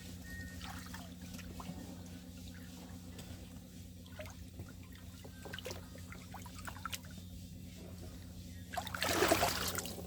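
Water trickling and small splashes as mangoes are washed by hand, with a louder rush of splashing water about nine seconds in.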